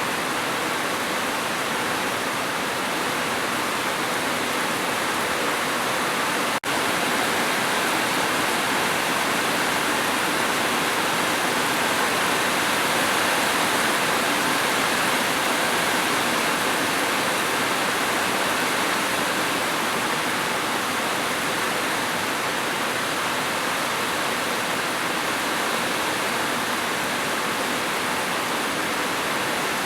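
Heavy, steady rain as an even hiss with no separate drops standing out, briefly cutting out for an instant about six and a half seconds in.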